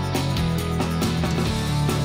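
Background music: a guitar-driven rock track with a steady beat.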